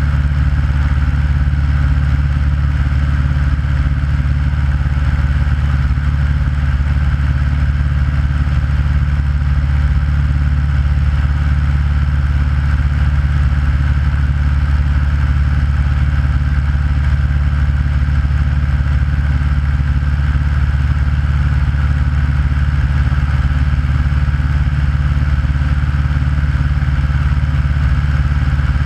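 Aeronca light aircraft's piston engine and propeller in steady flight: a constant, unchanging drone, strongest in the low end.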